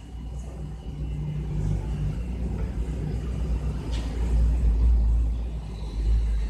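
A low rumble that swells about four seconds in, with a steady low hum during the first two seconds and a faint click near the four-second mark.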